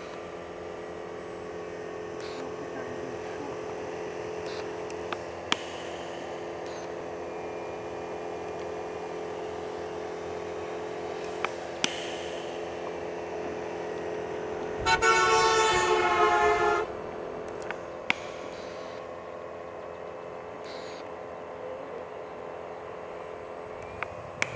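Steady whine of a Sig Kadet RC plane's Turnigy 60-500 electric motor and 15x8 propeller, with a few sharp clicks. About 15 s in, a loud, steady horn-like tone starts abruptly, holds for about two seconds and cuts off.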